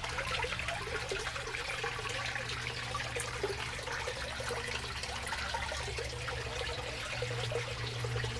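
Water splashing and trickling steadily from a small DIY backyard pond waterfall, with a steady low hum underneath.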